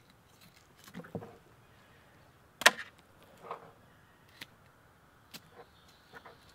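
Knife working through a plucked chicken's leg joint on a plastic table, with scattered small clicks and knocks as the leg is bent and cut; one sharp knock a little over two and a half seconds in is the loudest.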